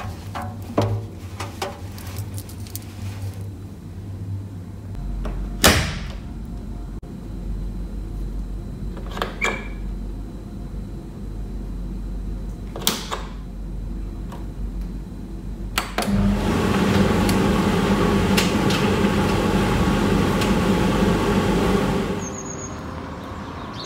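Damp laundry being pulled from a front-loading washing machine's steel drum and moved to a tumble dryer, with scattered clicks and knocks of doors and buttons, the sharpest about six seconds in. About two-thirds of the way through, the tumble dryer starts and runs with a steady hum and rush, which cuts off suddenly near the end.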